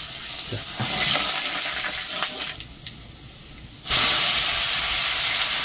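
Mustard tadka sizzling in hot oil in a kadhai, with scattered crackles and pops. About four seconds in, a sudden, louder, steady sizzle takes over.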